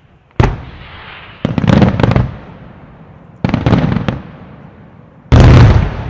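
Fireworks display: four loud bangs a second or two apart, the middle two each followed by a quick run of cracks, and each report rumbling away in an echo. The last and loudest bang comes near the end.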